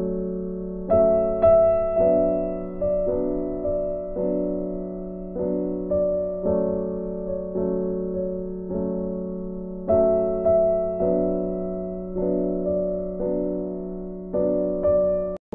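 Soft background piano music: slow, gentle notes that each ring out and fade. It cuts out for an instant near the end.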